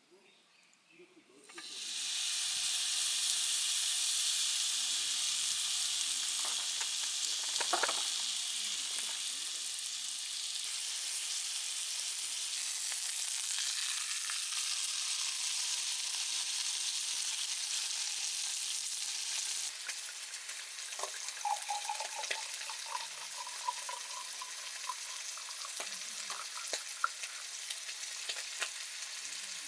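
Food frying in a hot pan: a steady sizzle that starts suddenly about two seconds in, as the food goes into the hot oil, with scattered pops and clicks. It eases slightly a little past the middle.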